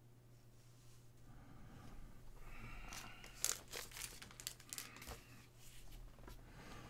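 Faint crinkling and rustling of plastic with a run of sharp clicks in the middle, from hands handling a trading card in a hard clear plastic holder. A steady low electrical hum sits underneath.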